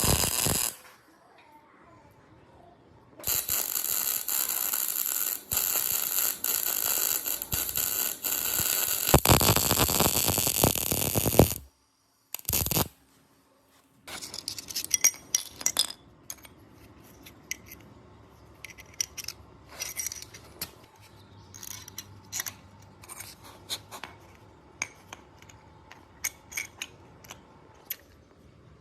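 A loud, steady machine noise runs for about eight seconds and cuts off suddenly, then comes back in one short burst. After that come scattered light clicks and taps of hand work.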